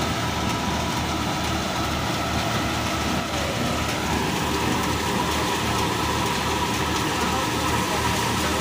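Tractor-powered wheat thresher running at steady speed: the tractor's diesel engine pulses low under load while the thresher gives a steady whine, over a continuous hiss of straw and grain going through the machine.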